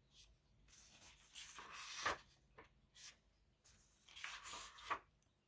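Magazine pages being handled and turned by hand: a few faint paper rustles and swishes, the main ones about two seconds in and again near the end.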